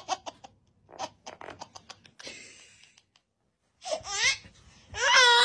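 A person's laughter trailing off in short bursts, with a few scattered clicks, then two brief voice sounds near the end that glide up and down in pitch.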